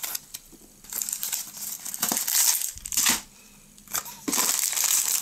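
A small cardboard box being torn open and handled, crackling and rustling in two spells with a short pause between.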